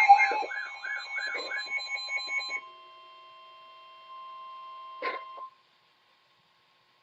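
Emergency alert signal: a rapidly repeating warbling beep over a steady tone, cutting off about two and a half seconds in. A faint steady tone follows, a brief crackle about five seconds in, then silence.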